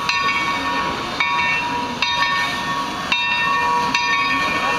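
A 2-8-0 steam locomotive's bell ringing about once a second, each stroke ringing on, over the hiss of steam as the engine moves slowly.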